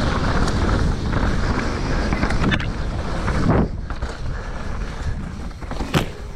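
Wind buffeting the microphone during a fast ride down a rough, muddy trail, with a steady low rumble and a few sharp knocks from rolling over bumps.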